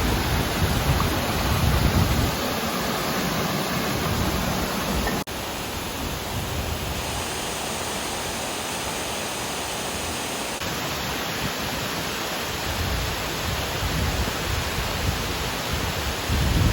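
A small waterfall rushing steadily into its pool, a continuous even hiss of falling water, with low rumbles at the start and near the end.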